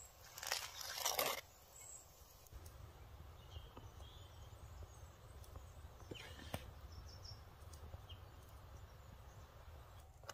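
Quiet outdoor ambience with a steady low rumble and a few faint bird chirps. About half a second in comes a crunchy rustle lasting about a second as sliced steak and toasted bread are handled on the board, and a shorter one follows past the middle.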